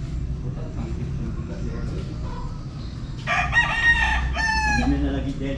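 A rooster crowing once, about three seconds in: a single cock-a-doodle-doo of under two seconds, over a steady low background rumble.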